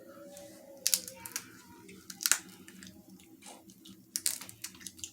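Close-up eating sounds of a seafood boil: sharp cracks and clicks of shellfish being handled and bitten, loudest about a second in, a little after two seconds and near four seconds.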